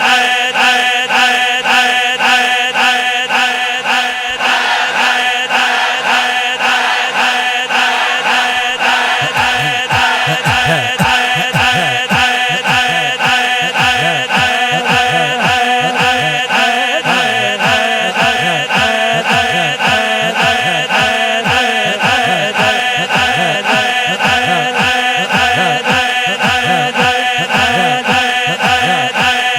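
Devotional naat chanting over a steady held drone with a regular repeating beat. Deeper voices join about nine seconds in.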